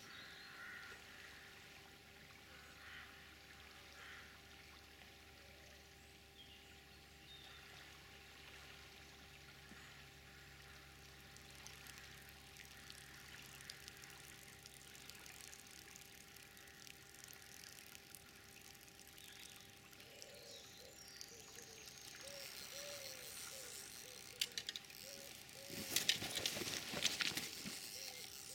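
Faint, steady flow of river water trickling. Near the end comes a burst of rustling and sharp clicks as the angler reaches the rods.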